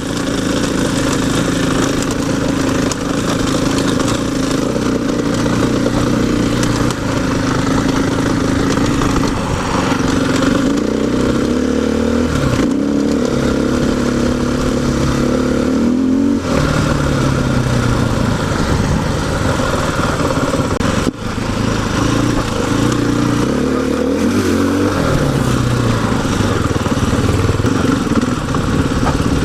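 Single-cylinder four-stroke KTM 500 EXC dirt bike engine under way, its pitch repeatedly climbing and dropping as the rider accelerates, shifts and rolls off the throttle, with a brief drop about two-thirds of the way through.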